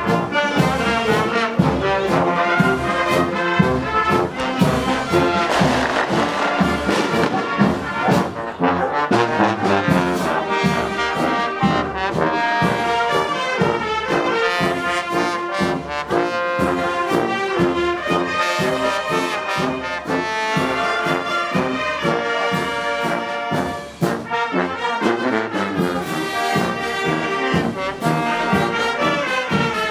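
Brass band playing, trombones and trumpets carrying a tune over a steady beat.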